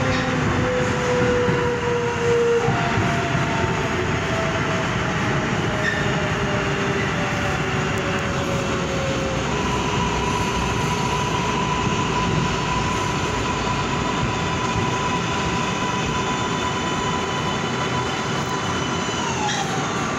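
R188 subway train running through a tunnel: a steady rumble and hiss of wheels on rail, with a thin electric whine that glides down in pitch over the first several seconds, holds steady, then drops again near the end.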